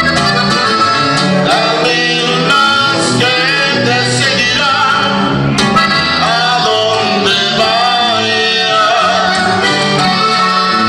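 Live norteño (fara fara) music: a button accordion playing the melody over a strummed bajo sexto and an electric bass holding bass notes on an even beat.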